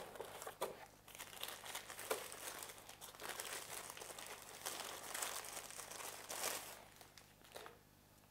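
Thin white wrapping around a camera body crinkling and crackling as it is lifted from its box and peeled off by hand, an irregular run of rustles and small clicks that dies away about seven and a half seconds in.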